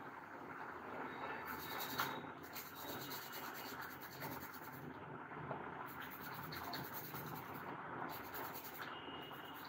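Small brush scrubbing a wet, soapy Lenovo laptop motherboard, a continuous irregular scratchy rubbing, as the board is cleaned of water damage. One sharper scrape stands out about two seconds in.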